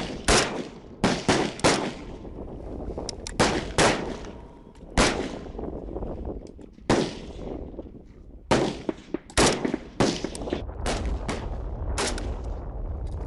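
Single shots from AK-pattern assault rifles: about twenty sharp cracks at irregular intervals, some in quick pairs and clusters, with a low rumble underneath.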